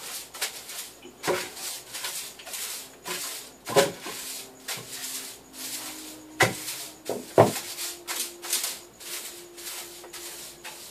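Broom sweeping a kitchen floor in quick repeated strokes, the bristles swishing, with a few sharper knocks among them.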